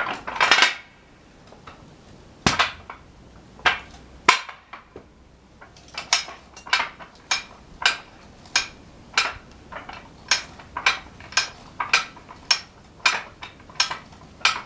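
Old railroad log jack being worked by hand, its ratchet giving sharp metallic clanks. A few come scattered at first; from about six seconds in they settle into an even rhythm of nearly two clanks a second as the jack slowly lifts the log.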